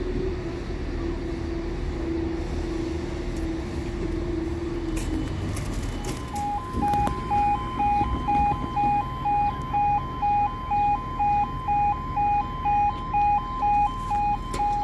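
Level crossing warning alarm sounding as the lights change to amber and then flashing red: a loud two-tone alarm alternating between two pitches about twice a second, starting about six seconds in. It warns that the barriers are about to lower for an approaching train. Before it, a steady low hum sits over street noise.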